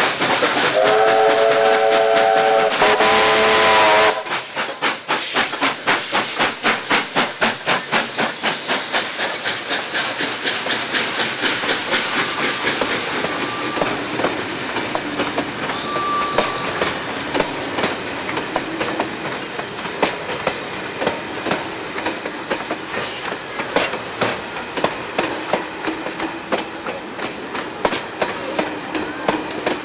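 A double-headed steam train led by AD60 Beyer-Garratt 6029 passes close by. Loud steam hiss carries a steam whistle sounding twice early on, and the hiss cuts off about four seconds in. Then come fast, regular exhaust chuffs, which give way to the clickety-clack of the carriage wheels over rail joints as the train rolls past.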